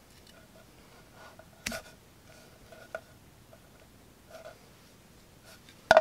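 Krudo Vice folding knife with a 9Cr18MoV stainless steel blade cutting paracord in a pullback cut: quiet handling with a sharp snap a little under two seconds in and a smaller click about a second later. Just before the end the knife is set down on a wooden board with a loud knock.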